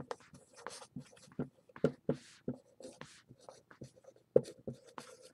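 Dry-erase marker writing on a whiteboard: a run of short, irregular scratchy strokes as words are handwritten.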